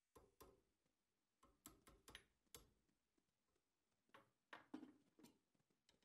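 Near silence, with a few faint, scattered ticks, three of them close together past the middle.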